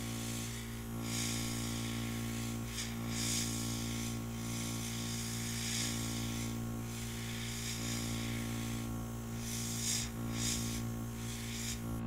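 Mini airbrush kit's small compressor humming steadily while the airbrush sprays ink in repeated short hissing bursts, the trigger pressed and released for fine lines.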